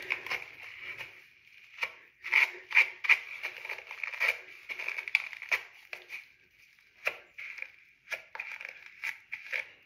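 Fingers working shampoo lather through wet, tightly curled hair: a run of short, irregular scratchy rubs, the loudest a couple of them about two and a half to three seconds in.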